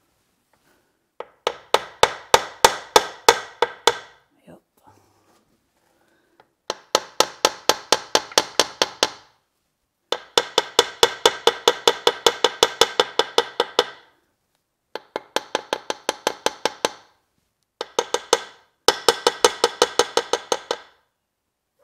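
Drill press power-feed gear mechanism clicking as it is turned by hand: rapid, evenly spaced metallic clicks, about five a second, in six runs with short pauses between them.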